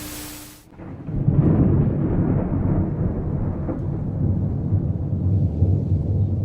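Low rumbling thunder that rises about a second in and rolls on unevenly, after a brief hiss with a steady hum that cuts off.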